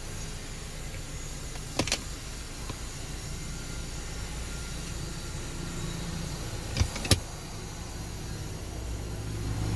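Hard plastic clicks of the rear armrest's fold-out cup holders in a 2014 Toyota Harrier being snapped open and shut: a quick double click about two seconds in and another about seven seconds in. Under them runs the car's steady low cabin rumble, rising near the end.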